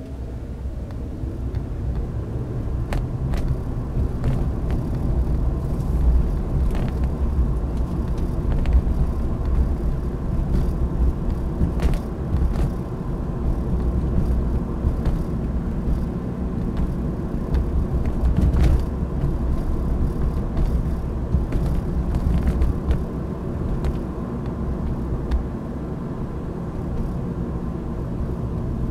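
BMW E90 3 Series on the move: steady engine and road rumble, with a few sharp clicks or knocks scattered through.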